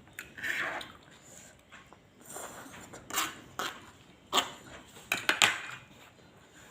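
Spoon and fork clinking and scraping against a plate while eating: a soft scrape about half a second in, then five or so sharp clinks in the second half, the loudest near the end.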